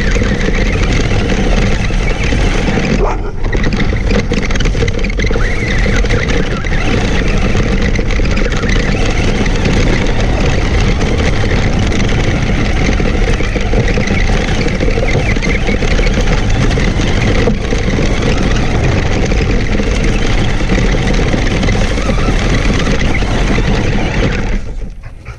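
Traxxas Stampede RC monster truck driving fast over loose gravel, heard from a camera mounted on the truck. It is a loud, steady rush of tyres crunching and throwing stones, mixed with drivetrain noise. It eases briefly about three seconds in and drops off near the end.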